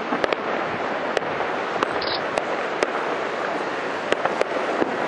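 Fireworks display: a dense, continuous rumble of bursts, broken by irregular sharp cracks.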